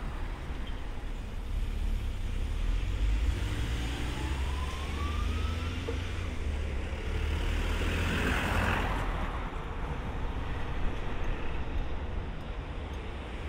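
JR Freight EH500 electric locomotive hauling a container train slowly past: a steady low rumble, with a faint rising whine about five seconds in and a short hiss about eight seconds in.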